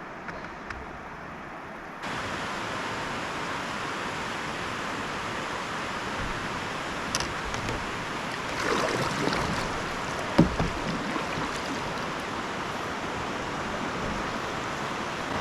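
Steady rush of flowing river water that gets suddenly louder about two seconds in, with a few light knocks and a single sharp knock about ten seconds in.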